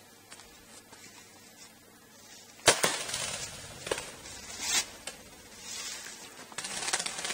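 A Mathews Heli-M compound bow is shot about two and a half seconds in, giving a single sharp snap of the string. Rustling and a few lighter clicks and scuffs follow.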